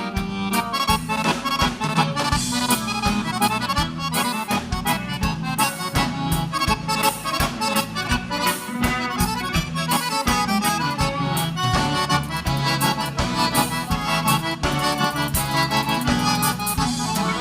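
Live gaúcho band playing an instrumental xote passage, the accordion carrying the melody over bass and a steady drum beat.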